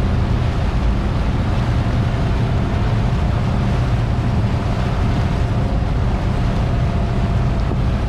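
Motorboat underway at speed: a steady engine drone under the rush and churn of its wake, with wind buffeting the microphone.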